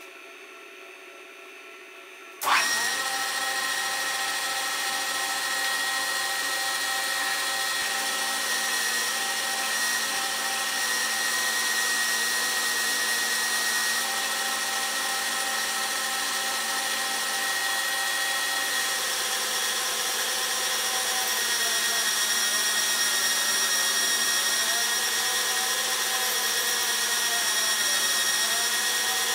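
Metal lathe switched on about two and a half seconds in, then running steadily with a constant whine while a twist drill held in the tailstock bores into the end of the spinning copper bar.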